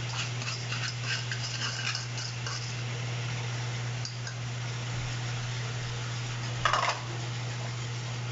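Wire whisk clicking and scraping against a nonstick frying pan, stirring sugar into heated coconut cream, in quick strokes over the first couple of seconds. A short, loud clatter comes about seven seconds in. A steady low hum runs underneath.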